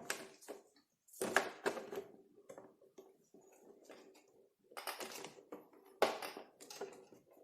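Small clicks, knocks and rustling of parts being handled and fitted by hand, in three short clusters with quiet gaps between them.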